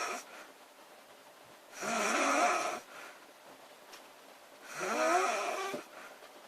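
Woman snoring loudly: two drawn-out snores about three seconds apart, each lasting about a second and rising in pitch at its start.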